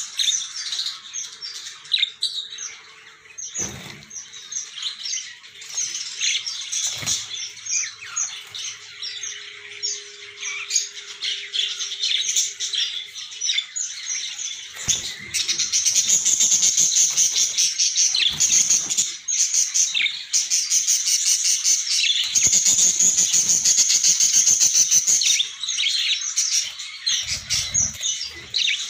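A flock of caged yellow parakeets chirping and chattering without pause, the chatter swelling louder and denser from about halfway. A few dull low thumps come through now and then.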